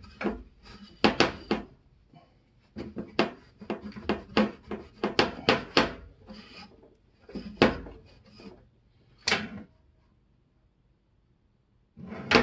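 Quick run of light clinks and taps as metal framing-nailer parts are handled and set down on a bench, followed by two louder single knocks and then a quiet stretch.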